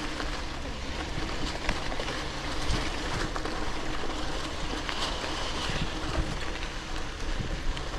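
Poseidon X Ambition gravel bike rolling over a sandy dirt road: a steady tyre rumble and crunch with occasional sharp clicks and rattles from the bike.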